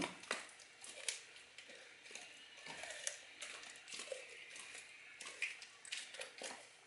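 Dog chewing raw chicken, crunching and snapping the bones in faint, irregular cracks.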